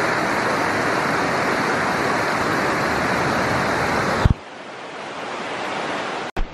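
Spring-runoff stream, a steady loud rush of water, cutting off abruptly about four seconds in to a quieter, more distant rush.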